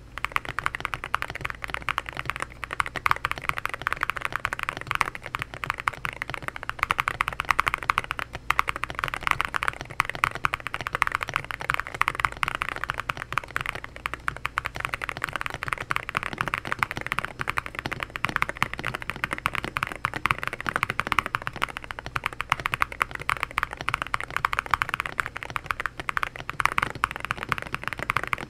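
Continuous fast typing on a stock Akko MU01 mechanical keyboard: a 65% board in a walnut wooden case, gasket-mounted on an FR4 plate, with Akko V3 Piano Pro switches and MOA-profile keycaps. The keystrokes run in a steady stream with a thocky sound.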